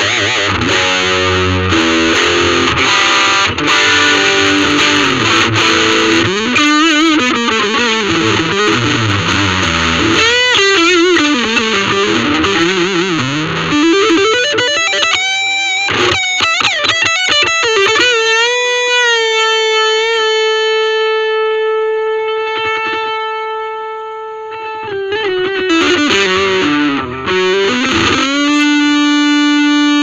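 Ibanez RG350DX electric guitar played through a Vox Soundbox Mini amp: fast lead runs with string bends. About two-thirds of the way through comes one long held note with slight vibrato that slowly fades, and a lower held note follows near the end.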